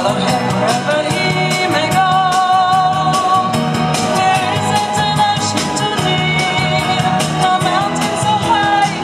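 A song playing loud, with a lead voice singing long held notes over a steady beat.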